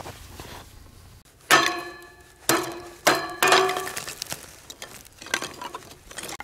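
Hatchet chopping kindling on a steel fire-pit grate: sharp blows starting about one and a half seconds in, four strong ones within two seconds and a few lighter ones later, each leaving a brief metallic ring.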